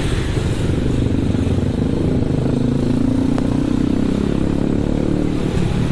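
Motorcycle engine running at riding speed, heard from the rider's own bike with a dense low rumble; the engine note rises a little in the middle and then eases off.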